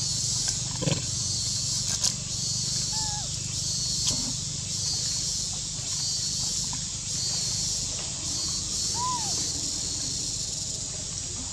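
Steady high outdoor hiss with a low steady rumble beneath it. A few faint knocks come in the first few seconds, and two short rising-and-falling animal calls, one about three seconds in and one about nine seconds in.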